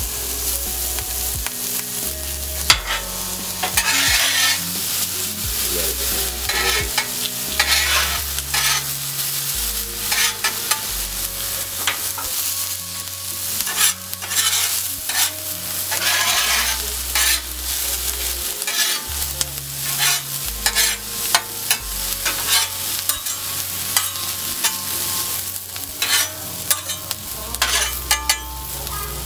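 Chopped bell pepper and onion sizzling on a hot Blackstone flat-top griddle, with metal spatulas scraping and clicking against the steel cooktop many times as the vegetables are stirred and turned.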